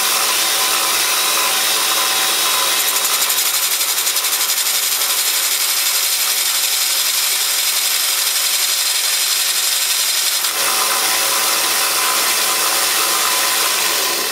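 Belt sander running with a fine sanding belt while a steel hole punch, spun in reverse by a drill, is held against it to sharpen its cutting edge: a steady, noisy grinding. The sound shifts slightly about ten seconds in.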